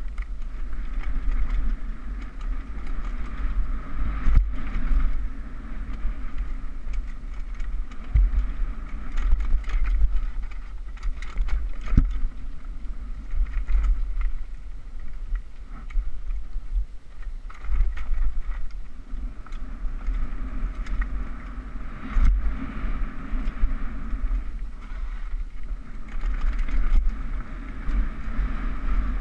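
A mountain bike descending a rough dirt trail at speed: a steady wind rush and rumble on the action camera's microphone, with the rattle of the bike over the ground and now and then a sharp knock.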